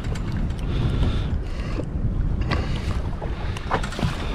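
Wind buffeting the microphone over the sound of the sea and water against a small boat's hull, a steady low rumble, with a few light clicks and taps as a hooked fish is handled and unhooked.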